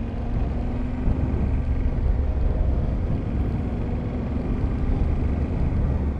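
Motorcycle running on the road at a steady riding speed: a continuous low rumble with rushing noise over it.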